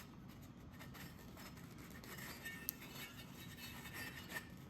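Faint rubbing and a few light clicks of hand work at the cylinder head, wiping excess thread-locker from around the freshly fitted spark plug insert.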